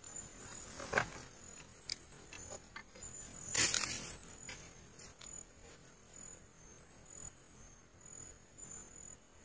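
Crickets chirping in short repeated high-pitched pulses, with a rustle in dry bamboo leaf litter about a second in and a louder, longer rustle around three and a half seconds in, as a rat moves off through the litter.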